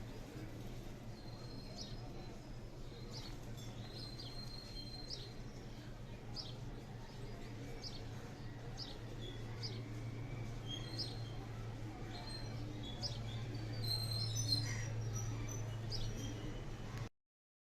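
Small birds chirping: short, high chirps and brief whistled notes about once a second over a steady low rumble. The sound cuts off abruptly just before the end.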